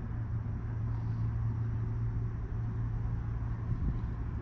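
Distant engine noise: a steady low hum over a rumble, with a soft knock near the end.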